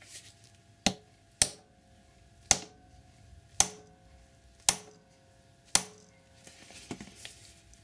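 A hammer striking the back of a Whale impact chain riveter six times, roughly one blow a second, each a sharp metallic clank with a short ring. The blows are punching a solid rivet on a Tsubaki X-ring chain's connecting link into a four-sided quad-stake rivet head.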